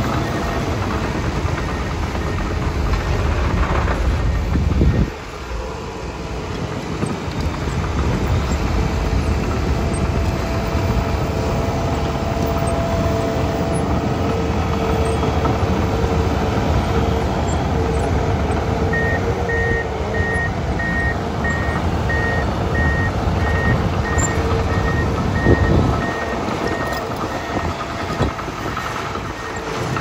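Komatsu D51PXi crawler bulldozer's diesel engine running steadily as it pushes dirt. A backup alarm beeps in an even series from a little past halfway to near the end, and a single loud knock comes about four seconds before the end.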